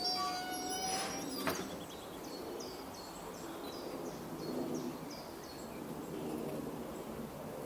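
A small songbird repeating a short, high, falling note about three times a second for a few seconds, over a steady background murmur. Near the start a brief held tone with overtones sounds, followed by a single sharp click.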